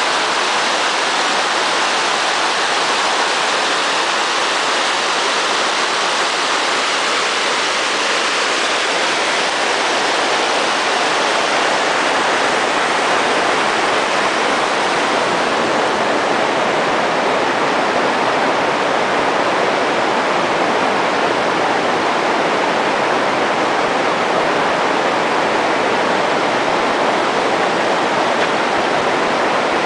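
Small mountain waterfall cascading over rocks: a steady, unbroken rush of water.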